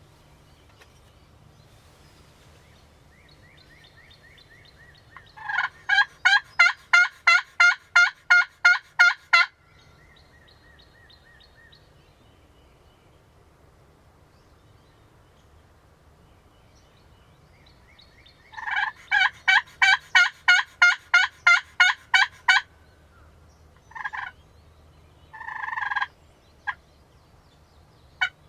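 Wild turkey yelping, loud and close: two evenly paced series of about a dozen yelps each, followed near the end by a few short single notes.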